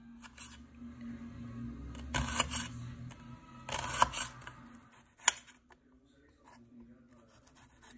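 A knife slicing through a red onion and striking a glass cutting board: a few short bursts of cutting, the loudest around the middle, and a single sharp click of the blade on the glass about five seconds in.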